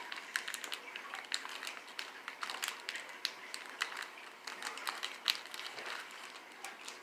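Foil wrapper of a Magic: The Gathering booster pack crinkling and crackling in the hands as it is spread open and the cards are slid out, a string of small irregular crackles and clicks with one sharper click about five seconds in.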